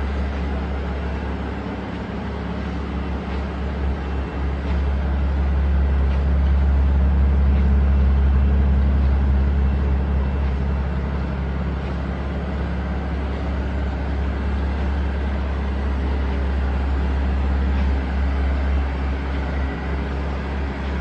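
Mercedes-Benz SL600's twin-turbo V12 engine running with a steady low drone, swelling a little louder several seconds in and then settling back.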